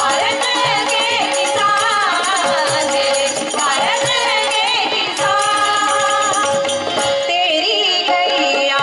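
Devotional bhajan music: singing over a steady held drone note, with rattling hand percussion keeping time.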